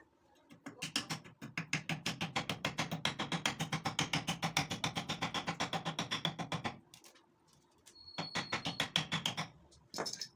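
Rapid, even mechanical knocking, about ten strokes a second, running for about six seconds. It stops, then comes back twice more briefly.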